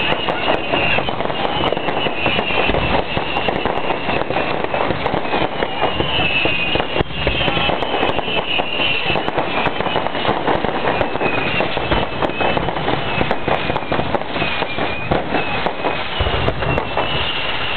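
Fireworks display: a dense, continuous crackle from bursting crackling stars, with wavering high-pitched whistles coming and going over it.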